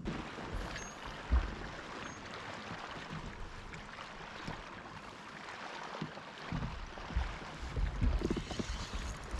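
Water lapping and swishing along a kayak's hull, with one sharp knock about a second in and uneven wind buffeting on the microphone over the last few seconds.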